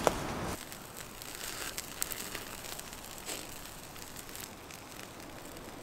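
Small wood campfire crackling, with scattered sharp pops over a soft hiss.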